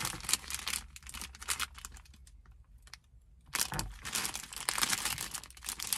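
Plastic packets of pom-pom trim crinkling as they are handled and shuffled in the hands, a dense run of small crackles and clicks with a pause of about a second and a half near the middle.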